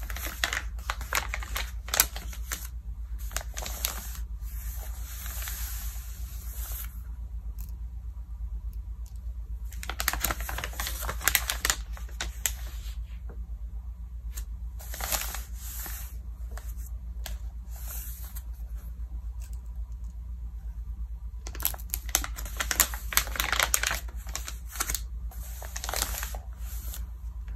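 Glossy magazine pages turned, crinkled and smoothed by hand, in several bouts of crackling with short lulls between.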